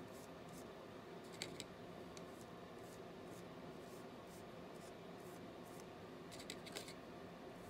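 Faint scratching and dabbing of a paintbrush working thick paint onto a textured surface, with a few sharper ticks about a second and a half in and again near the end, over a steady low room hum.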